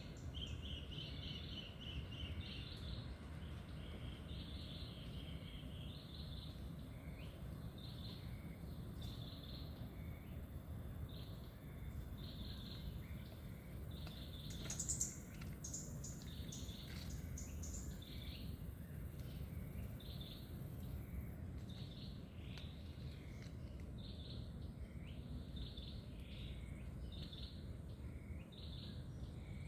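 Small songbirds chirping and singing in short repeated calls over a steady low rumble of background noise, with one louder, higher call about halfway through.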